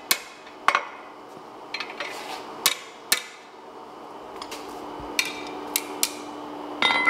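Hand hammer striking a flat steel bar handle laid across the edge of a steel plate, bending out some of its curve: sharp ringing metal strikes, about five in the first three seconds, then a few lighter strikes near the end.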